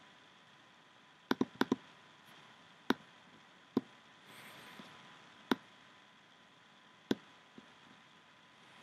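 Clicks of a computer's pointing device: two quick double clicks about a second and a half in, then single clicks a second or two apart, over a faint steady hiss.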